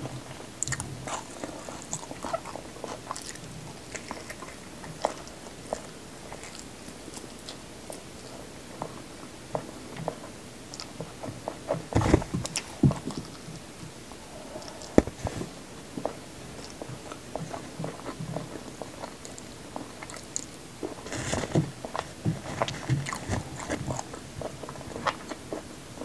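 Close-miked chewing and biting of food, a piece of spiced whole egg among it: soft, wet mouth clicks throughout, with clusters of louder bites about halfway through and again near the end.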